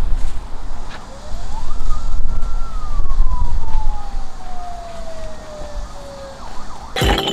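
Wind buffeting the microphone in gusts, with a single clear tone about a second in that rises quickly, holds briefly, then slides slowly down over about four seconds.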